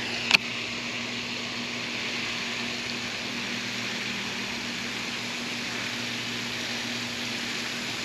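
A sharp click from a baitcasting reel just after the start as the bait is cast. Then a steady hiss with a low hum while the lure is reeled in.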